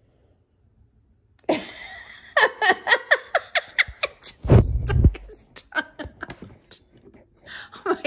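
A woman laughing in quick repeated bursts, starting about a second and a half in, with a dull low thump from the phone being handled near the middle.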